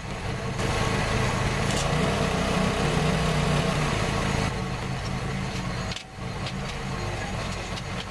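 TIG welder running on steel bike tubing: a steady electrical hum with a hiss over it. The hiss is louder from about half a second in to about four and a half seconds, while the arc is on the joint.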